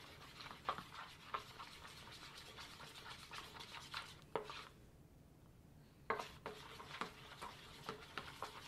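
Metal fork stirring glue, baking soda and water in a plastic bowl, with irregular clicks and scrapes of the fork against the bowl. The stirring stops briefly about halfway, then starts again.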